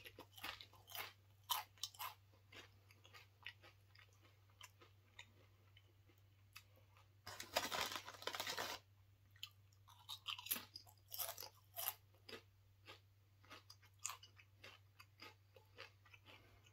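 A person chewing a mouthful of Doritos tortilla chips: crisp crunches in irregular clusters, with a denser, louder stretch lasting about a second and a half about halfway through. A faint steady low hum lies underneath.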